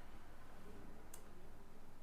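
Quiet room tone with a steady low hum, and a single small sharp click about a second in.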